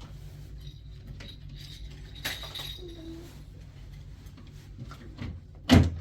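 Colored pencils clicking and clinking against each other as they are gathered up and put back into their box, with a louder knock near the end.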